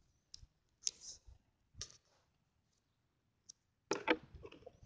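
Handling noise from a phone being taken in hand and moved while it records: a few scattered light clicks and taps, then a denser run of knocks and rubbing near the end.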